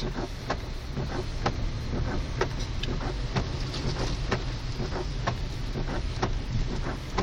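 Car interior while driving through a flash flood in heavy rain: a steady low engine and road hum, a sharp tick about once a second in an even rhythm, and smaller scattered clicks in between.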